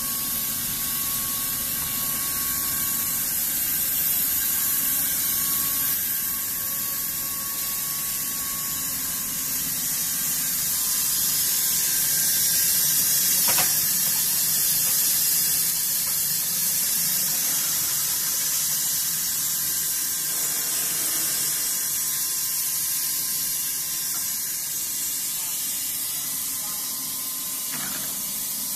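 WXC80S bar peeling machine and JY100 straightening machine running together on a steel bar production line: a steady machinery hiss, with a faint steady tone and a short click about halfway through.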